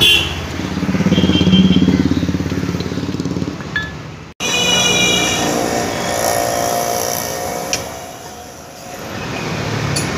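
Road traffic: a small engine passes close by, its fast, pulsing note swelling and then fading over the first few seconds. Steady traffic noise follows, with a single light metallic click.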